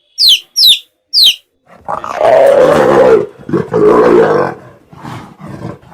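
Three quick, high, falling chirps, then a large animal roaring twice in long, loud, rough calls, with fainter calls trailing off near the end.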